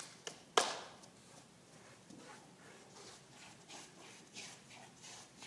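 Footsteps on a wooden stage floor: a sharp loud thump just after the start, then a run of lighter steps, a few a second.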